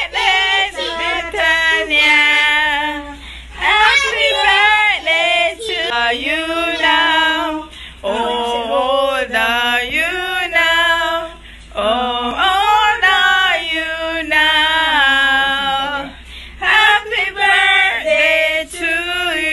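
A small group of voices, mostly women's, singing a birthday song together, loud and unaccompanied.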